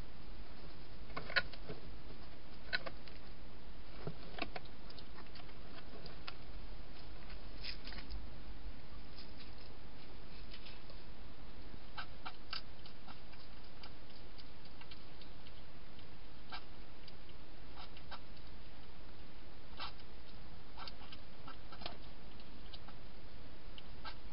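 A hedgehog eating dry food inside a plastic feeding box: irregular sharp crunches and clicks over a steady background hiss.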